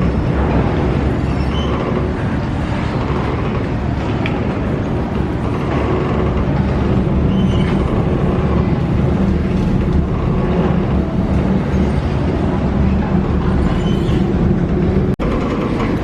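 Steady low rumble of a moving vehicle with faint voices in the background, broken by a sudden cut about a second before the end.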